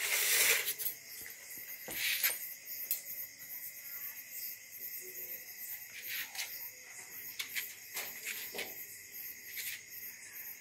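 Insects chirring steadily, with a short rustle at the start and scattered soft clicks and scrapes of a hand eating rice from a steel plate.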